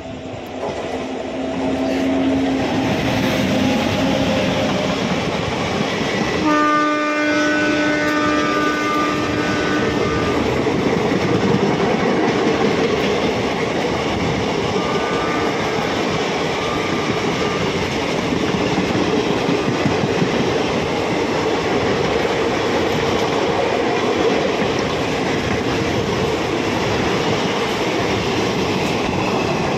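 An Indian Railways train passes close alongside on the adjacent track, with a steady loud rush and rattle of wheels on rail. Its locomotive horn sounds for about three seconds about a quarter of the way in, and again more faintly around halfway.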